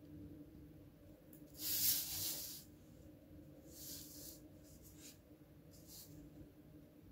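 A sheet of paper being slid and turned on a wooden tabletop. It makes one loud rustling scrape about two seconds in that lasts about a second, then shorter, softer rustles near four, five and six seconds.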